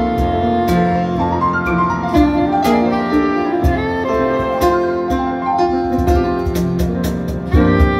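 Soprano saxophone playing a jazz melody over grand piano accompaniment.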